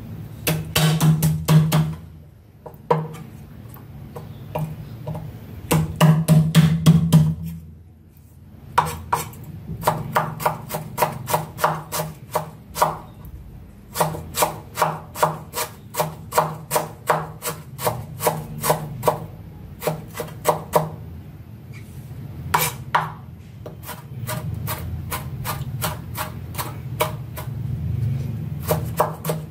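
Cleaver-style kitchen knife finely chopping garlic, ginger and red chili on a wooden cutting board: quick runs of sharp knocks as the blade strikes the board, with short pauses between runs.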